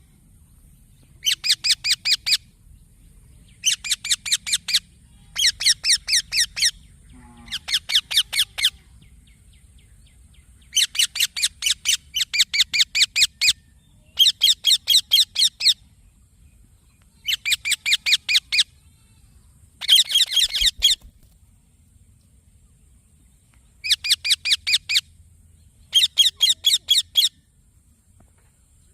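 A baby green parrot, an Indian ringneck, chirping in about a dozen short bursts. Each burst is a rapid run of high, repeated notes lasting about a second, with brief pauses between bursts.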